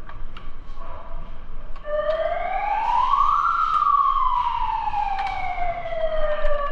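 A siren winding up in pitch over about a second and a half, then slowly winding down over several seconds. Scattered sharp clicks are heard alongside it.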